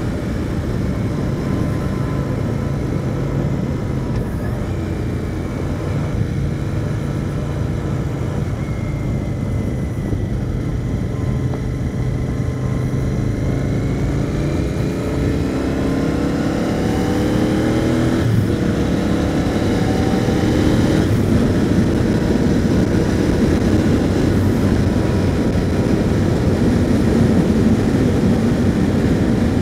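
Royal Enfield Continental GT 650's parallel-twin engine running under way, with wind and road noise. About halfway through it accelerates, the engine note rising, breaking off briefly at a gear change and rising again, and it gets louder towards the end.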